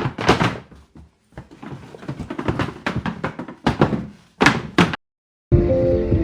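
Several loud thumps, each with a short ringing tail, with a quieter rustling stretch between them. After a brief dead silence near the end, music with steady held notes starts.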